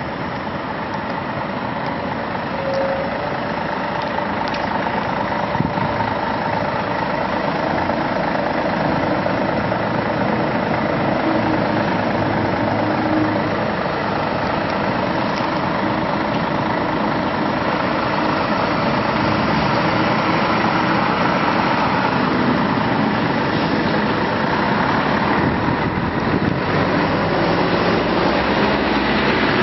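Scania L113CRL bus's rear-mounted six-cylinder diesel idling steadily, then growing louder near the end as the bus pulls away from the stop past the camera.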